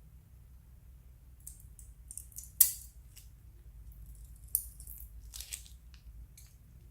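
Crackling, clicking and rustling from handling slime and plastic piping bags: scattered small crackles, a sharp snap about two and a half seconds in, another near the middle, then a brief rustle.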